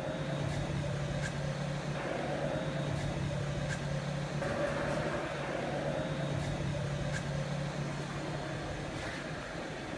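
2002 OKK VM-5II vertical machining center running, a steady machine hum with a low drone and a faint higher tone, and faint light ticks now and then.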